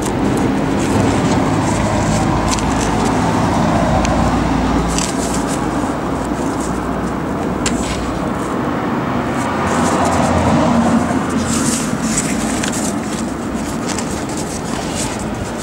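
Steady road-traffic noise that swells about ten seconds in, with paper rustling now and then as old booklet pages are handled.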